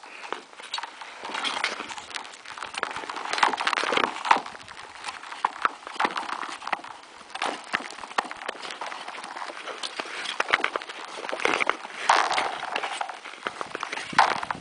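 Nordic skates and ski-pole tips on thin black lake ice, about 4 cm thick: swishing skate strokes and sharp pole clicks every second or so. The thin ice rings in high tones as it flexes under the skater, a sign that it is only just thick enough to carry him.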